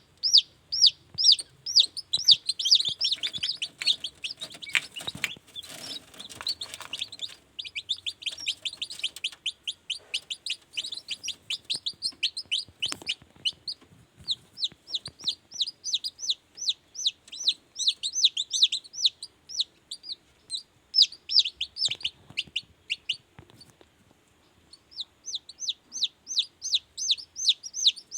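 Newly hatched kampung chicks peeping: rapid, high, falling peeps, several a second, from more than one chick, with a short lull a little before the end. A few faint knocks come in between.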